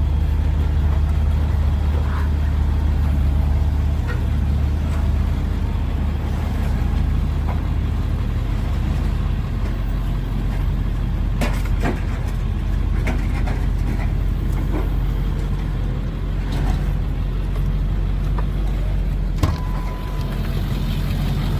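Pickup truck engine running at low speed while reversing with a loaded trailer, heard from inside the cab, with a few sharp knocks midway and near the end.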